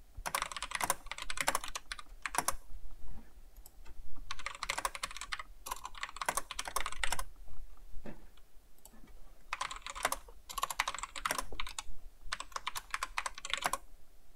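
Typing on a computer keyboard: bursts of rapid keystrokes lasting a second or two at a time, with brief pauses between them.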